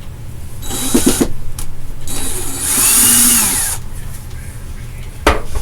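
A handheld power tool motor running in short bursts: a brief one about a second in, then a longer, louder run whose pitch rises and falls as the motor speeds up and slows down. A sharp knock near the end.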